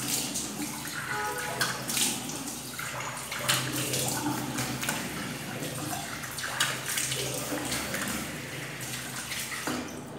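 Water splashing as hands repeatedly scoop it onto the face, rinsing off shaving lather after a razor pass. The splashes come irregularly over a steady wash of running water.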